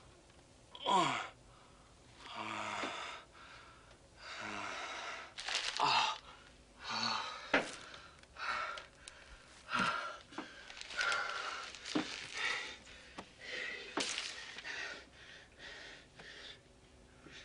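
A man breathing heavily, catching his breath in a string of gasps and breathy exhalations, some with a short falling voiced sigh.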